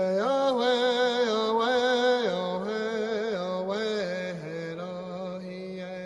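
A single voice chanting a slow, wordless melody, holding long notes and sliding in small turns between them. It grows softer about halfway through.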